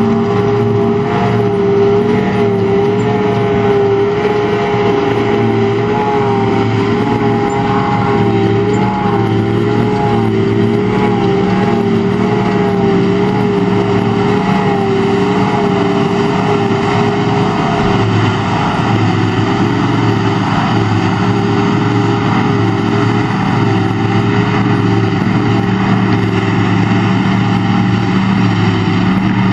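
John Deere 7750i self-propelled forage harvester chopping grass and blowing it into a trailer, with the tractor pulling the trailer alongside. The machinery runs as a steady, loud drone, with a wavering whine that is strongest in the first half.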